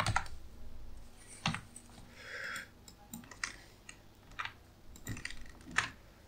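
Computer keyboard typing and mouse clicks: a handful of irregular, separate keystrokes and clicks.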